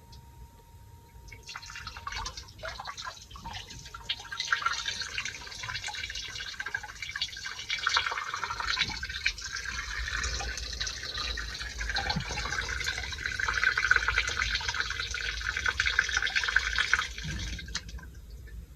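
Water dripping and trickling, with many small splashes and clicks. It starts about a second and a half in and stops near the end.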